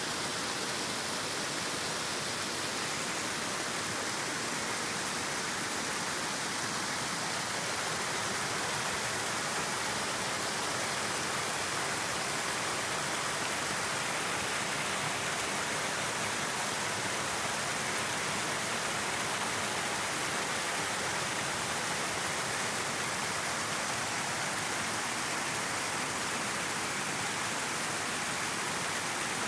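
River water flowing: a steady, even rush.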